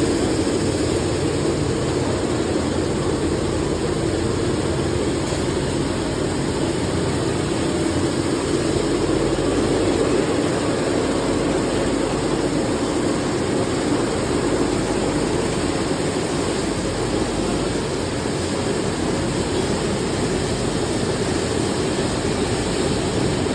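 Oat processing machinery running: an oat peeling line with vibrating sieve decks driven by electric vibration motors, giving a steady, even machine noise with no breaks.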